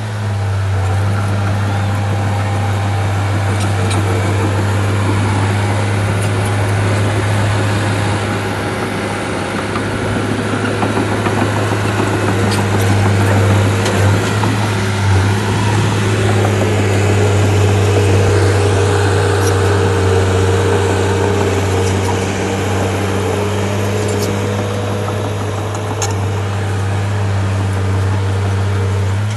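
Bulldozer's diesel engine running steadily under load with a deep, constant tone, growing a little louder about halfway through.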